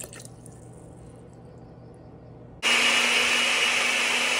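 An Oster countertop blender switches on abruptly about two-thirds of the way in and runs at a steady speed, a loud even whir over a constant motor hum, puréeing fermented jalapeños in brine and vinegar. Before it starts there is only a faint low hum.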